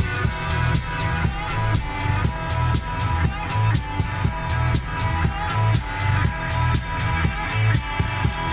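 Background music with a steady beat, guitar and drums.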